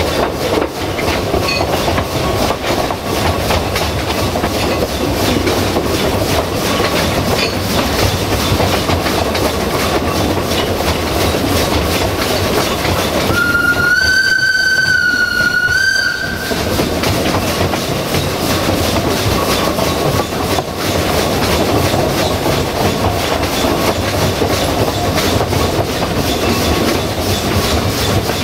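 Narrow-gauge steam train 762.209 running, with a steady rapid clatter of wheels on the rails. About halfway through, the locomotive's steam whistle sounds once for about three seconds.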